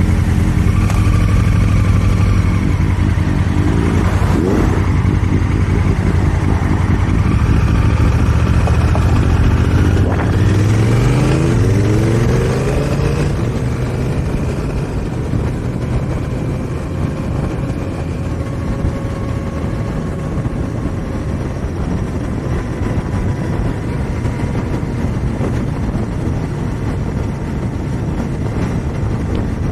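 2018 Honda Africa Twin's parallel-twin engine idling, then revving up with rising pitch as the bike pulls away about ten seconds in. After that, steady wind and road noise at riding speed, with the engine underneath.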